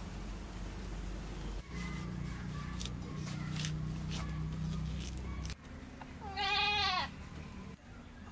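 A goat bleats once, a wavering call just under a second long, about six seconds in. Before it a low steady hum runs for a few seconds, with a few faint clicks.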